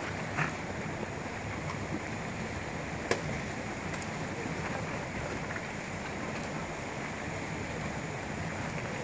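Steady rushing outdoor background noise, with one sharp click about three seconds in.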